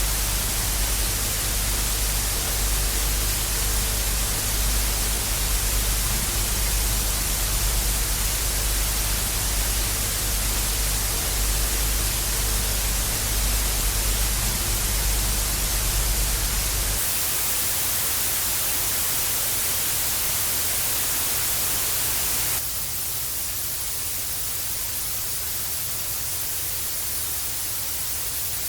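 TV static: a steady hiss with a low hum under it. Part way through, the hum drops out abruptly and the hiss turns thinner and brighter; a few seconds later it steps down a little in level.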